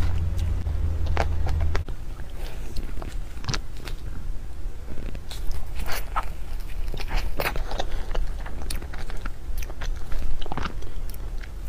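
Close-up mouth sounds of biting into and chewing cream puffs, with the crumbly-topped choux shell giving irregular sharp clicks and crackles among the wetter chewing. A low hum underlies the first couple of seconds and then drops away.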